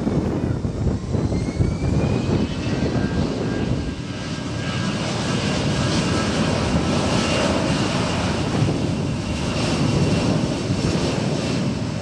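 Jet airliner passing with its engines running: a loud, steady rumble with a high turbine whine that rises in pitch in the first few seconds, then holds steady.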